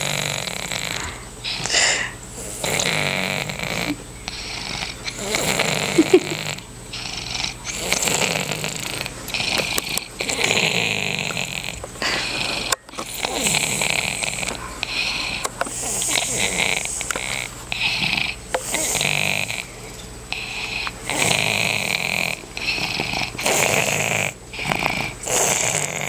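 A sleeping toddler snoring through a stuffy nose, one rasping breath about every two seconds.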